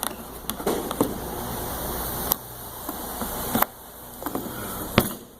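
Handling noise: a few sharp clicks and knocks over a low steady hiss that drops away about two seconds in and again a little later.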